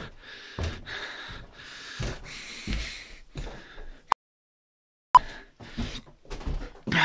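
Footsteps and knocking thumps on wooden floorboards, with rustling from the handheld camera. About four seconds in, a sharp click cuts to a second of dead silence that ends with another click.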